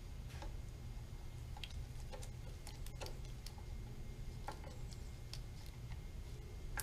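Scattered, irregular light clicks of a screwdriver driving a screw back into a Yamaha outboard's lower-unit gearcase, sealing it after the gear-oil fill. A sharper click comes at the very end, over a low steady hum.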